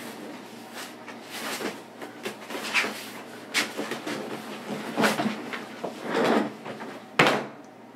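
Irregular scuffing, rustling and light bumps of someone moving around office furniture, with one sharp knock about seven seconds in.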